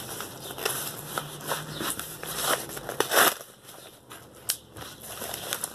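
Mailing envelope handled and crinkled, with scattered rustles and crackles and a louder rustle about three seconds in.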